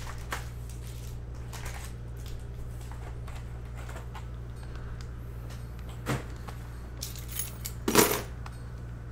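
Foil trading-card packs being handled and set down in a stack on a table mat: faint rustles and light clicks, a sharp click about two-thirds through and a louder short clatter near the end, over a steady low hum.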